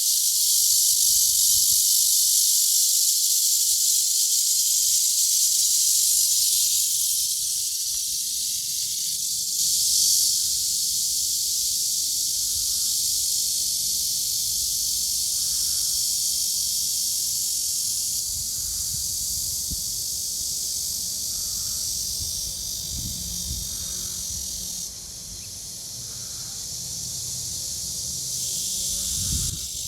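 Cicadas in chorus, a loud, steady high-pitched buzzing hiss that swells and eases slightly. A faint low rumble comes and goes in the second half.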